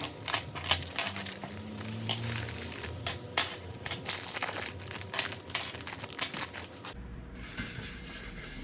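Packaging being handled and unwrapped, with crinkling and rustling crackles, until an abrupt change near the end to a softer, steady hiss.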